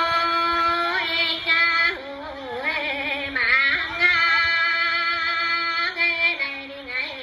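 A woman singing a festive congratulatory folk song solo and unaccompanied, holding long notes that bend and waver between pitches, with short breaths in between.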